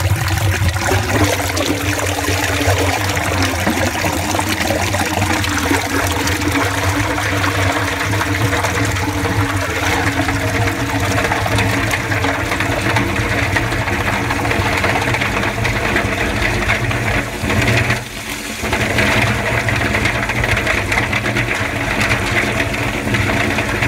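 Sewage rushing through the sewer pipe into the boundary shaft as the blockage clears, over a steady machine hum.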